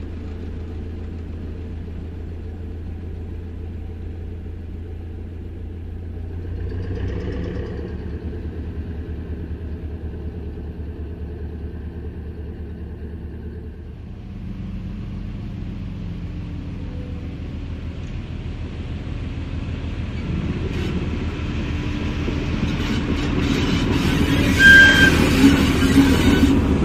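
Diesel rail vehicles running slowly on the track. First a single diesel railcar's engine drones steadily. Then an ÖBB 2067 diesel shunting locomotive approaches, growing louder, its wheels clicking over rail joints, with a brief squeal near the end.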